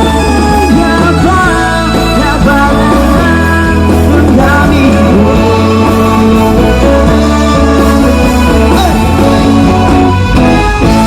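Loud music with a singing voice over a strong, steady bass.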